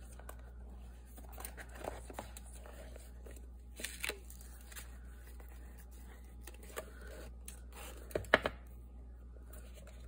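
Rustling and light tapping as a paper-covered notepad and its elastic cord are handled on a work surface. A couple of sharper knocks come about eight seconds in.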